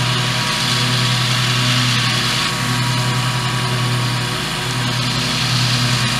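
Riding lawn mower engine running steadily while mowing, a constant drone with no change in pace.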